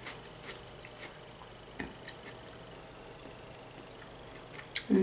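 Quiet chewing and wet mouth sounds of a person eating stewed broccoli and fresh vegetable salad, with scattered light clicks of a fork picking at the plate. A brief louder low vocal sound comes near the end.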